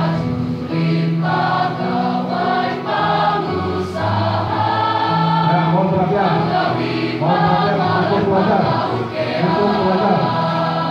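A high school choir singing together in long held notes.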